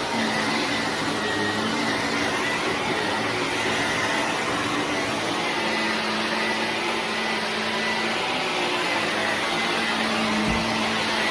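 Vacuum cleaner running steadily: a whooshing rush of air over a steady motor hum and a faint high whine, with one soft low bump about ten seconds in.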